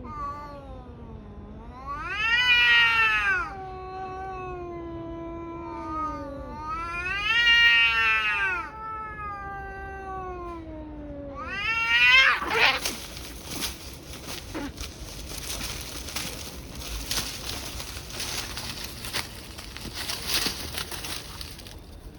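Two Li Hua tabby cats caterwauling in a fight: long, drawn-out yowls that wail up and down in pitch, swelling three times, the third peaking about twelve seconds in. After that the yowling gives way to a harsh, noisy scuffle with sharp clicks.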